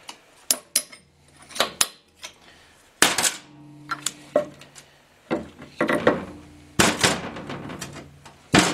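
Irregular metal knocks and clinks, some ringing briefly, as the rear cap plate of a GM SM465 transmission is worked loose and pulled off the case.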